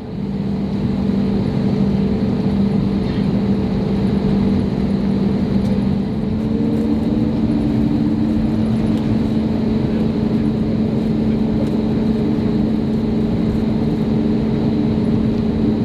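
Airbus A321neo's jet engines heard from inside the cabin: a loud, steady rumble with a hum on top, building over the first second, the hum stepping up in pitch about six seconds in.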